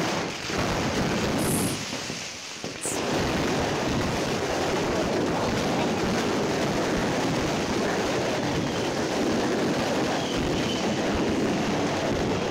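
Fireworks going off at close range in a dense, continuous run of rapid crackling pops. The noise dips briefly about two seconds in, then holds steady and loud.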